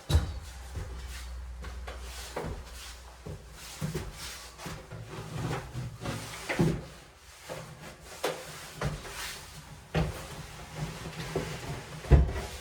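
Plywood cabinet boxes being handled and fitted into place: irregular knocks and clunks of wood, a few of them sharp and loud, over a low hum.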